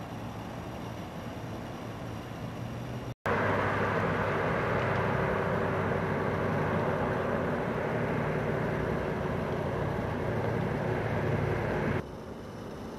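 Steady street noise of vehicle engines and traffic, a low rumble with a held hum. It cuts out briefly about three seconds in, returns louder, and drops back to a quieter level near the end.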